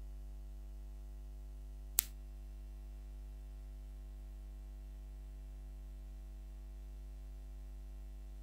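A steady low hum with one sharp click about two seconds in.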